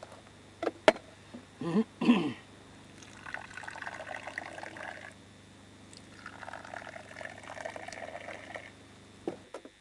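Tea poured from a raised teapot into a small tea glass in two long trickling streams, after a couple of short clicks about a second in.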